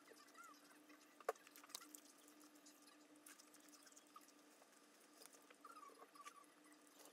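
Faint eating sounds: scattered soft clicks of metal chopsticks against plastic food containers, with one sharper click about a second in, over a faint steady hum.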